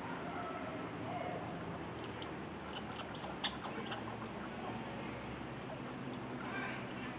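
A string of about fifteen short, sharp, high-pitched animal chip calls, all at much the same pitch. The loudest comes about two seconds in, then a quick run of about four a second, then sparser ones until about six seconds in.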